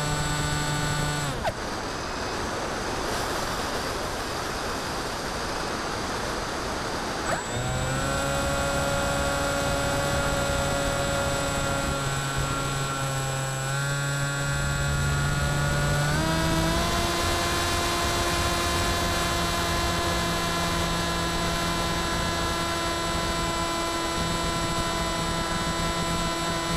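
Electric motor and propeller of an FX-61 Phantom flying wing, heard from the onboard camera: a steady whine that cuts off about a second in, leaving only rushing air for about six seconds. The whine then comes back rising in pitch and steps up again a little past halfway, holding steady after that.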